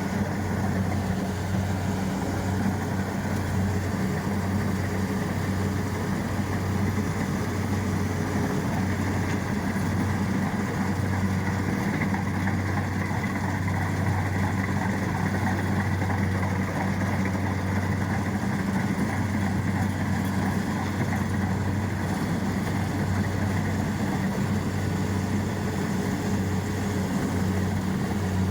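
Kubota rice combine harvester's diesel engine running steadily, a constant low hum that holds one note.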